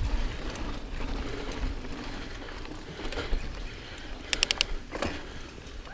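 Niner EMD 9 hardtail mountain bike rolling fast over a dirt and sand trail: a steady tyre and trail noise with a low rumble from the bumps. A quick run of four sharp, high clicks comes about four and a half seconds in.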